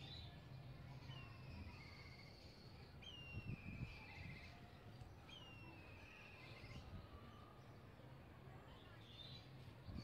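Black kites calling three times, each a high whistle sliding down into a quavering trill, with fainter calls alongside. Underneath runs a steady low hum, with a few soft low thumps about three and a half seconds in.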